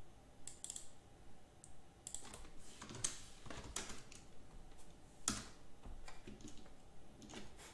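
Computer keyboard typing: sparse, irregular key clicks with a few louder clicks, as a number is entered.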